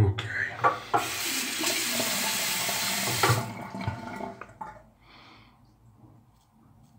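Bathroom tap running into the sink for about three and a half seconds, with a few knocks near the start, then shut off.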